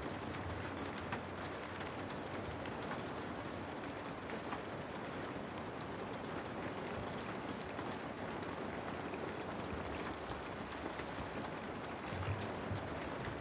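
Steady rain ambience: an even hiss of rainfall with scattered drop ticks and a low rumble underneath that swells briefly near the end.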